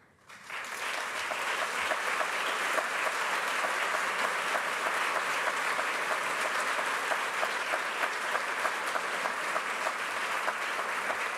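Audience applauding, building up over the first second and then holding steady with dense clapping.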